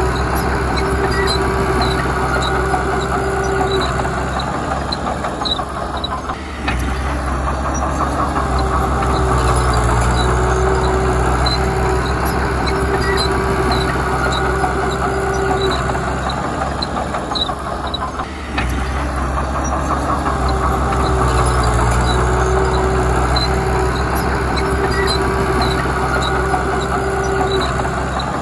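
Komatsu D31P crawler bulldozer's diesel engine working steadily, with a steady whine and light high ticking over it; the engine note dips briefly twice, about twelve seconds apart.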